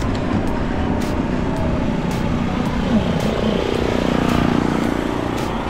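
Steady rush of wind and road noise from riding, with a motor vehicle's engine rising over it from about three seconds in.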